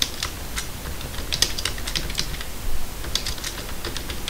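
Computer keyboard typing: quick, irregular key clicks, some in rapid runs.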